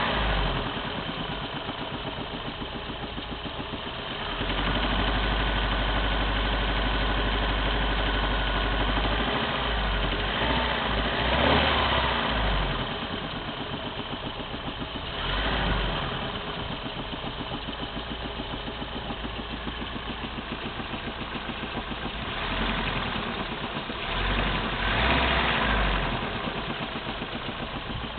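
Opel C20NE 2.0-litre four-cylinder petrol engine, hot, idling with a rhythmic knock and raised in revs several times. The knock shows up once the engine is warm.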